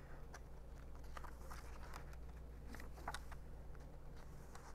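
Quiet room with a steady low hum and faint, scattered rustles and ticks of paper pages being handled and turned.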